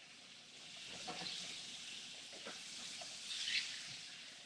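Faint sizzling of flounder frying in oil in a skillet, with a few light knocks.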